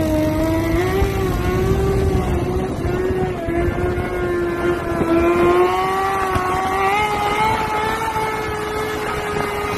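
Sport bike engine held at steady high revs while the rider keeps the bike on its back wheel in a wheelie, its pitch creeping slowly upward, with wind rumble on the microphone.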